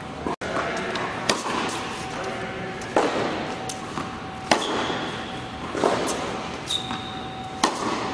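Tennis ball struck by a racquet during groundstroke practice on an indoor court, five sharp hits about one and a half seconds apart, each echoing in the large hall.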